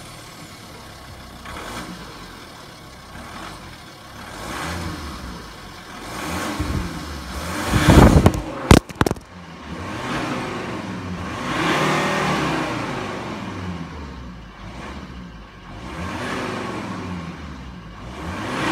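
Volvo C30 D5's 2.4-litre five-cylinder turbodiesel revved again and again at its twin exhaust tips, each rev swelling and dying away over a second or two. The loudest rev, about eight seconds in, is followed by a brief clatter as the exhaust blast knocks the camera over.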